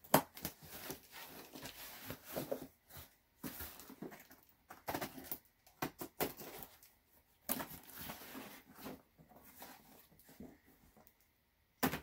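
A cardboard box being opened by hand: irregular rustling and crinkling with scattered light knocks and clicks, stopping briefly now and then.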